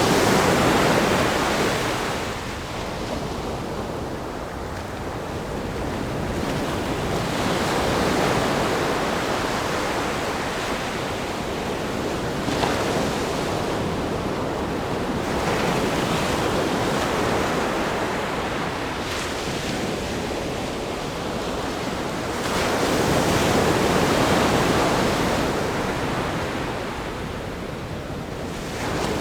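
Ocean surf breaking against a rock groin and washing up a sandy beach. It is a steady wash of noise that swells with each breaking wave about every seven to eight seconds, four times here.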